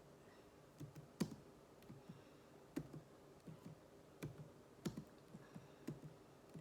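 Faint clicks of computer keyboard keys being typed, single strokes and short runs a few times a second at an uneven pace.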